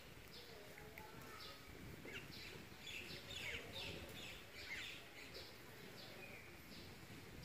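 Small birds chirping faintly: short downward-sweeping chirps repeated over and over, busiest around the middle, over a low background noise.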